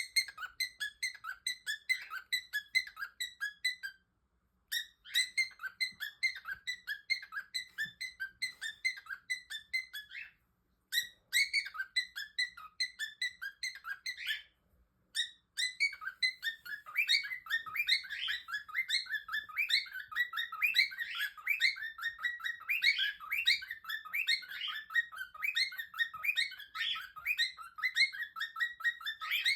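Small songbird singing in fast, high chirping trills, stopping briefly three times in the first half, then singing without a break, with quick rising and falling notes.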